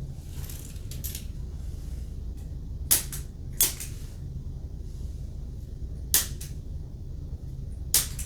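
Spring-loaded chiropractic adjusting instrument firing against the foot: four sharp clicks, about three seconds in, a moment later, about six seconds in and near the end, some of them doubled.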